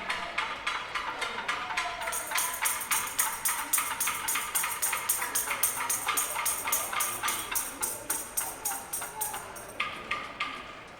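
Cacerolazo: pots and pans struck with metal in a steady, fast rhythm of about five blows a second, with a bright metallic clang, as in a pandemic-era pot-banging protest. The banging drops off near the end.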